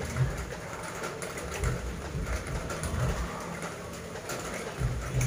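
Kendang drum music played back through a SoundQueen RC-10 12-inch active speaker and a Bowel 18-inch active subwoofer for a sound check, with deep, irregular bass drum strokes.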